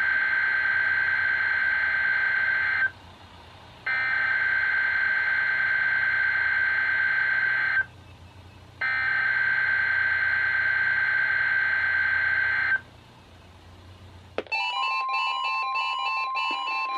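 NOAA Weather Radio SAME header: three buzzy digital data bursts of about four seconds each, a second apart, that open a required monthly test alert. About fourteen seconds in, the steady 1050 Hz weather radio warning alarm tone begins, with short higher beeps repeating over it.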